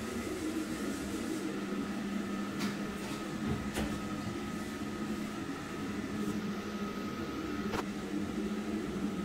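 Steady electrical hum of a high-frequency PVC welding machine switched on and standing by, with a few sharp clicks.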